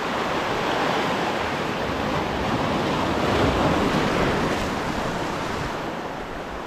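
Sea waves washing and breaking over shoreline rocks, a steady rush of surf that swells to a louder crash about halfway through and then eases.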